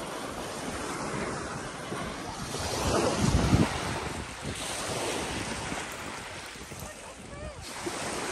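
Small lake waves washing onto a sandy shore, with wind blowing on the microphone. A stronger low gust rumbles about three seconds in.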